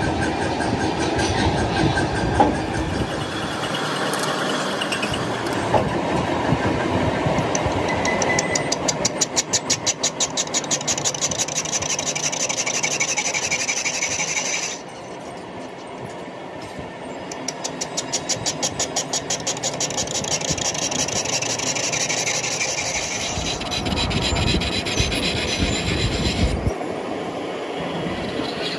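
Crankshaft-production machinery running in a factory: a steady mechanical noise with stretches of fast, even, rhythmic rattling. It drops away suddenly about halfway through and then comes back.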